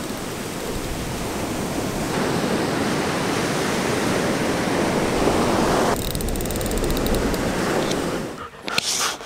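Steady rushing noise of surf and wind at the shore, with no distinct tones; it thins out about six seconds in and falls away near the end, with a few clicks.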